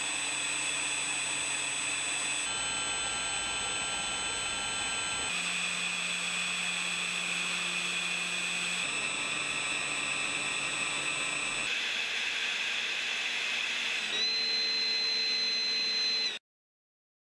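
3D-printed electric ducted fan on a brushless motor, run steadily in a string of short test recordings at different thrust settings with toroidal and standard bladed fans: a steady rushing hiss with high whining tones whose pitch changes abruptly at each cut, every two to three seconds. The last, a standard fan at full power, is the loudest, with a strong high whine, and it stops dead a little after sixteen seconds.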